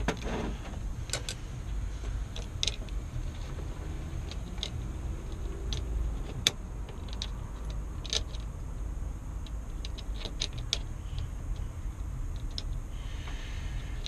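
Scattered small metallic clicks and taps as the parts of a Sargent mortise lock body are probed with a screwdriver and handled, over a steady low rumble.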